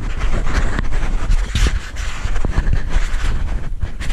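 Wind buffeting the microphone on a moving bicycle, a heavy low rumble with a rough hiss over it.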